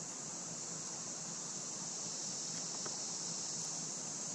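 Steady high-pitched chorus of insects, with a couple of faint ticks partway through.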